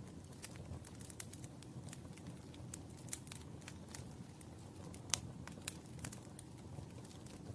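Wood fire in a fireplace crackling, with irregular sharp pops over a low steady rumble of flames; the loudest pop comes about five seconds in.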